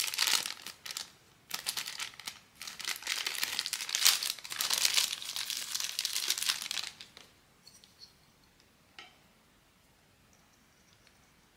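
Blind-box packaging being torn open and crinkled by hand: dense crinkling and tearing that stops about seven seconds in. A few light clicks follow, then near quiet.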